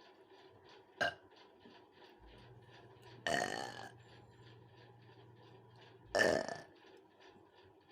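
A young woman burping: two loud burps about half a second each, roughly three seconds apart, with a short sharp sound about a second in.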